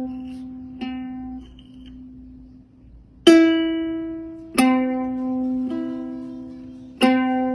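Ukulele strings plucked by a cat's paw: single notes struck about five times at uneven intervals, each ringing and fading away, one of them higher in pitch.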